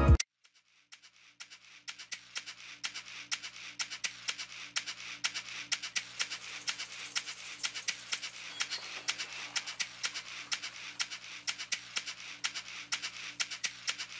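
Pen nib scratching and tapping on paper as lines are drawn, a fast irregular run of short strokes over a faint steady hum. It starts after about a second of near silence.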